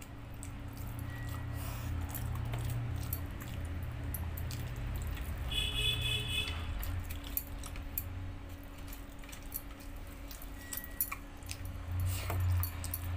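Hand mixing and scooping rice on a steel plate, with the bangles on the wrist clinking, and chewing, over a low steady hum. A brief high squeak comes about halfway through.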